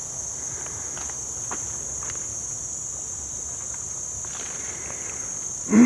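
Insects in the mangrove forest giving a steady high-pitched buzz, with a few soft footsteps on mud and leaf litter.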